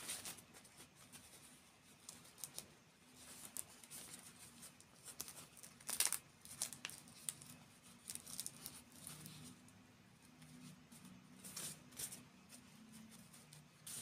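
Intermittent crackly crinkling and small clicks of close-up ASMR handling noise, loudest about six seconds in and again near the end, over a faint steady low hum.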